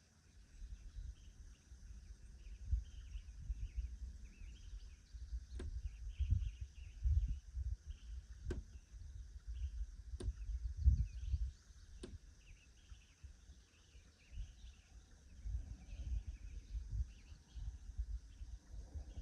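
Woodland ambience: a steady chorus of insects and birds chirping, under irregular low rumbling gusts on the microphone. Four sharp clicks stand out about a third of the way in, a couple of seconds apart.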